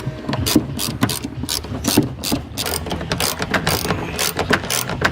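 Hand socket-wrench ratchet clicking in quick irregular strokes, about four clicks a second, as a seat bolt is turned.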